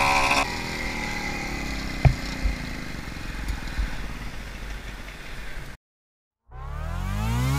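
Hercules moped's two-stroke engine running for a moment, then cutting to a quieter steady rush of riding noise with a single sharp knock about two seconds in. After a brief dead silence near the end, electronic music fades in with a rising sweep.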